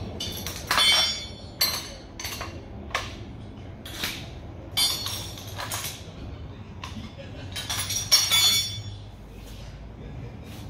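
Metal clinking and clanking from tools and steel parts being handled at the base of an engine hoist, a dozen or so irregular knocks with a short bright ring. The clanks bunch together about a second in, around five seconds in and again near eight seconds, then ease off.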